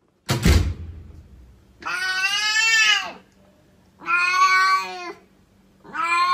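A sudden thump, then a cat meowing: two long, drawn-out meows and a third starting near the end.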